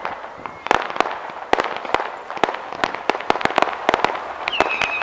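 Fireworks crackling and popping: rapid, irregular sharp bangs, several a second, growing denser. A high steady whistle sets in near the end.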